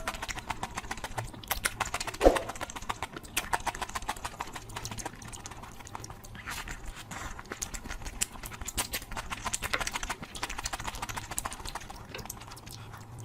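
Close-miked eating sounds: fast, irregular wet clicks of chewing, with one louder knock about two seconds in.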